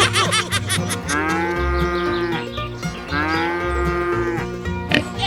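Two long moo-like animal calls, each about a second and a half, over background music with a steady beat.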